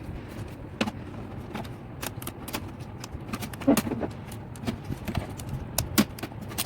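Irregular clicks and knocks of hands handling a printer and its packaging, over a steady low hum, with a few louder knocks about halfway through and near the end.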